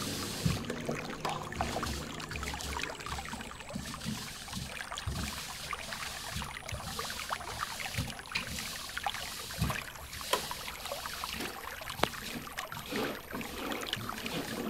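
Aquarium water trickling and bubbling, with scattered small pops and clicks.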